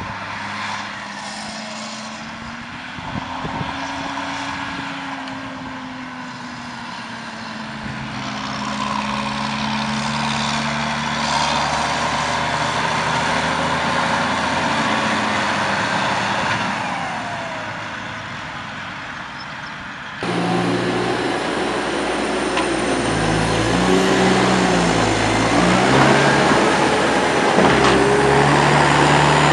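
Diesel engine of a New Holland tractor towing a tipper trailer, driving past with the engine note swelling and fading. Then, after a sudden cut, the louder diesel of a Manitou telehandler revving up and down repeatedly as it works.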